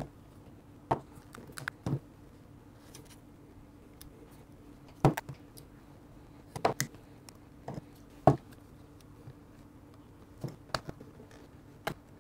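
A knife blade picking and prying at the rubber covering of a Lytro camera: about ten irregular sharp clicks and scrapes with quiet gaps between.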